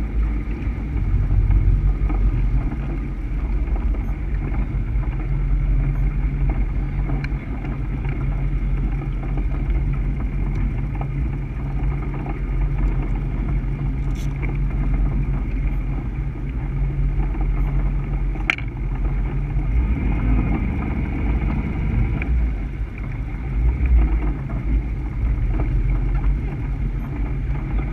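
Warlock 25 SXT catamaran's Mercruiser 496 HO V8 running steadily under way, a constant low drone, with the rush of water and wind over the hull.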